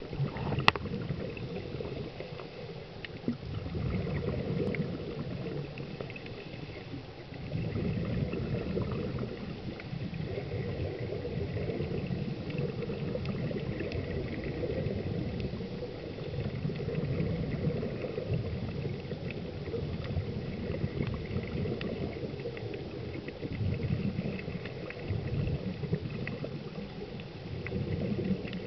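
Muffled underwater rumble heard through a camera housing, with gurgling swells every few seconds from scuba divers' exhaled bubbles.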